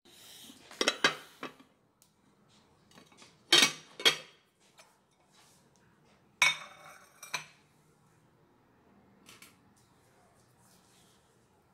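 Glass casserole dish and its glass lid being handled on a kitchen counter: four short bursts of clinks and knocks, glass on glass and on the countertop, one of them ringing briefly as the lid is set down.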